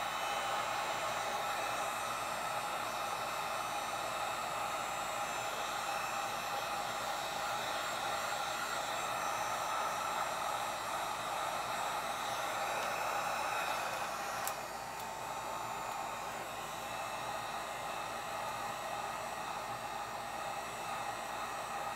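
Electric heat gun running steadily, a whirring blast of hot air with a faint whine, aimed at the gummed-up mechanism of a vintage sewing machine to soften old hardened oil and free a stuck lever. About two-thirds of the way through there is a click, after which it runs a little quieter.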